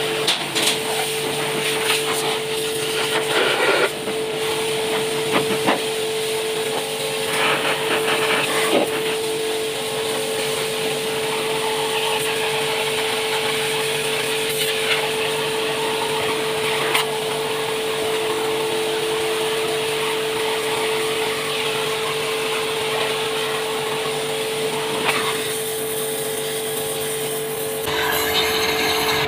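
Pressure washer running steadily with a constant hum, its jet hissing as it blasts water through the fins of a clogged engine radiator core, with a few short knocks in the first several seconds.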